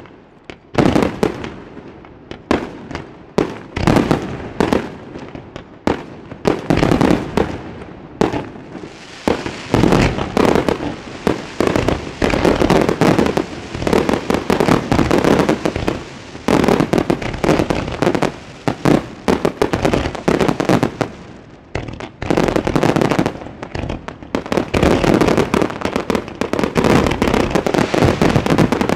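Fireworks display recorded in the open: a dense, rapid run of aerial shell bursts and crackling, almost without pause. The bursts thin out briefly about two-thirds of the way through, then another dense volley follows.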